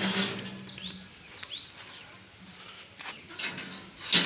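Rusty wrought-iron gate's sliding bolt latch worked by hand: a metal clank at the start, a sharp click about three seconds in and another clank near the end. A few short, high, chirp-like squeaks come about a second in.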